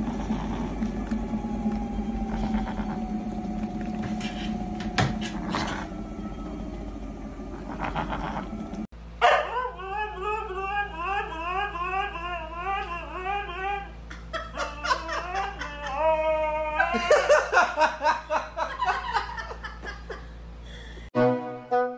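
A steady low hum with a few clicks for about the first nine seconds, then a dog vocalizing: long wavering, warbling howl-like calls repeating about twice a second, followed by shorter stepped and pulsing calls.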